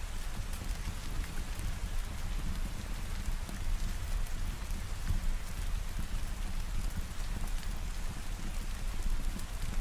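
Steady rain falling, a dense patter of small drop ticks over a continuous low rumble.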